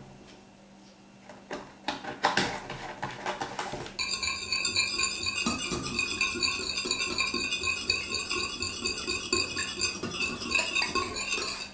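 Wire balloon whisk beating an egg and milk mixture in a glass bowl: a few clinks at first, then from about four seconds in a fast, continuous clatter of the wires against the glass.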